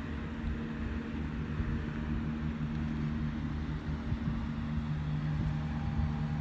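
Steady low mechanical hum, engine-like, over a constant outdoor background hiss.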